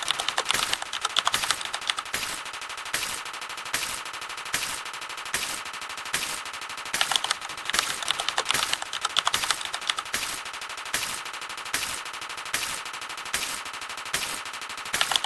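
A dense, rapid-fire stream of short clips of sound effects, fired one after another in a fast clicking rattle. There are louder bursts a little more often than once a second, over a steady high tone.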